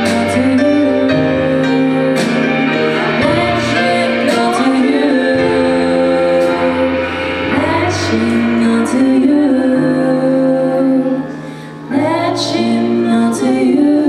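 Two female voices singing a slow pop ballad together, held notes over piano chords and drums. The music drops away briefly a little past eleven seconds in, then comes back in full.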